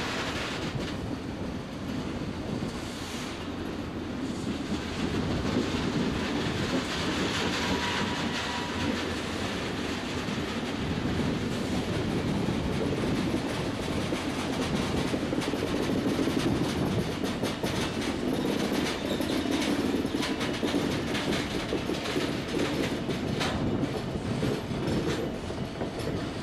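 Wheels of a Stadler Class 777 electric unit rolling slowly past on depot track while it is being hauled, with a steady rumble and a clickety-clack of wheels over rail joints. The clicks come more often in the second half.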